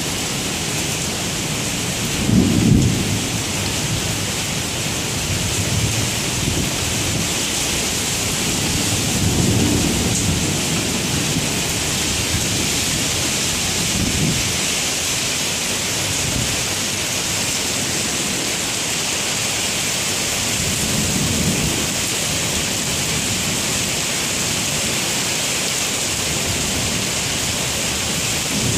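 Heavy thunderstorm rain pouring steadily on pavement and a car, with low rumbles of thunder swelling several times, the loudest about two and a half seconds in.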